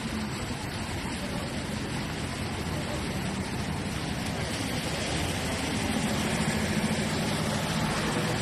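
Steady noise of street traffic on a busy city road, with indistinct voices.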